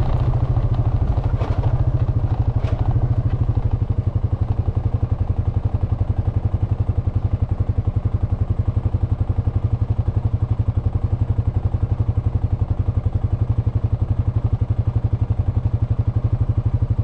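Honda FourTrax Foreman ATV's single-cylinder engine running steadily at cruising speed, with a fast, even throbbing pulse. A few light clatters come in the first few seconds.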